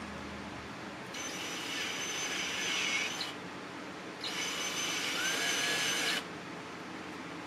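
Cordless drill running in two bursts of about two seconds each, spinning a countersink bit to deburr the tapped set-screw holes in a turned metal bushing. A steady whine that briefly slides in pitch during each burst.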